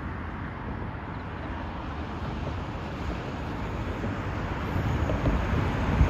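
Road traffic passing, with wind rumbling on the microphone; the traffic grows louder toward the end.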